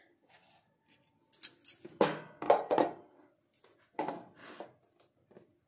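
Stainless-steel bowls and a spoon being handled on a plate, giving a few clinks and clatters. The loudest cluster comes about two seconds in and another about four seconds in.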